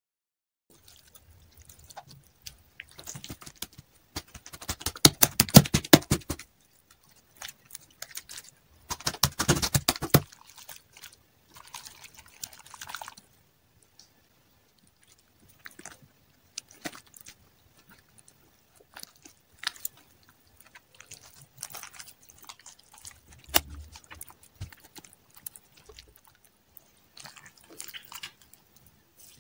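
Crunchy slime being squished and kneaded by hand: dense runs of crackling and popping a few seconds in and again near ten seconds, then scattered sticky clicks and squelches.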